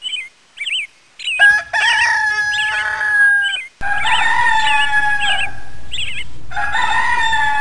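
A rooster crowing three times, each crow a long held call, with short high bird chirps before and between the crows.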